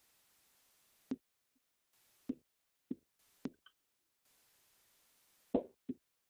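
Dry-erase marker on a whiteboard while writing: about six soft, irregular taps as the tip meets the board, with a brief faint squeak about three and a half seconds in.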